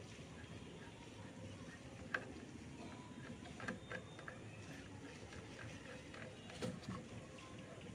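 Faint, irregular small clicks and taps from hands working at the refrigerant pipe connections of an air conditioner's outdoor unit, over a low steady background noise.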